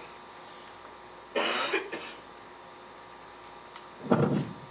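A woman coughing into her elbow: two short coughs, one about a second and a half in and another near the end.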